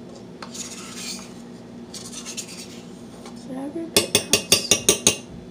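A metal spoon scraping yogurt out of a plastic tub, then a quick run of about eight sharp taps of the spoon against a container rim near the end, knocking the yogurt off.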